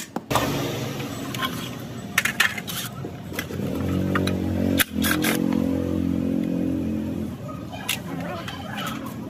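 Cordless drill motor running steadily for about four seconds, with a brief stop partway, as it backs screws out of a cast metal motor housing. Sharp metal clinks of tools come before it and again near the end.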